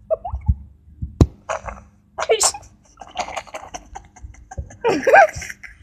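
Children's voices in short, scattered fragments: mumbles and brief vocal noises, with a single sharp tap about a second in.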